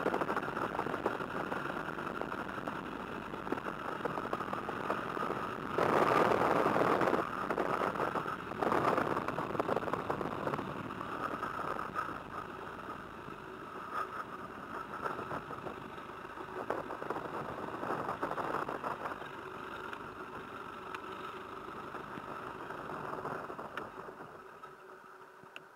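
De Havilland Tiger Moth's Gipsy Major four-cylinder engine running at taxiing idle, twice louder for a second or so a quarter of the way in. It is then shut down, fading and dying away near the end.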